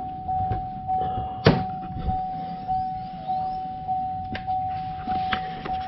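A car's warning chime dinging over and over, a little under two chimes a second, as with the key on and the driver's door open, with one sharp knock about one and a half seconds in.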